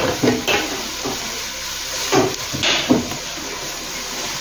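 Sliced onions sizzling in hot oil in a non-stick pan while being sautéed soft, stirred with a wooden spatula: a steady frying hiss with several scraping strokes of the spatula, the loudest about three seconds in.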